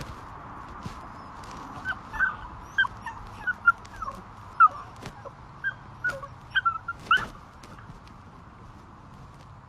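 A dog whimpering: a series of short, high-pitched whines, about a dozen of them, which stop about seven seconds in.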